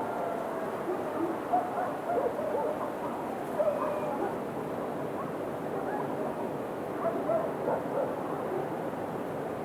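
Several dogs barking, short scattered barks at different pitches over a steady background hiss.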